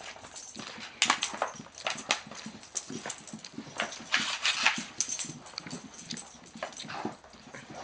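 A Great Dane and a puppy scuffling in rough play: an irregular clatter of paws scrabbling and thumping, with sharper knocks about a second in and again around four to five seconds in.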